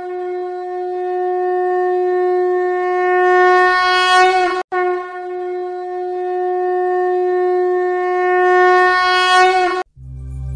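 Conch shell (shankha) blown in two long blasts of about five seconds each. Each holds one steady, bright tone and dips in pitch as it ends.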